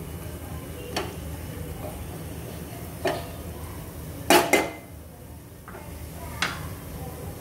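Wooden spatula stirring masala paste in a pressure cooker, knocking sharply against the pot: once about a second in, again about three seconds in, a loud double knock in the middle, and once more near the end.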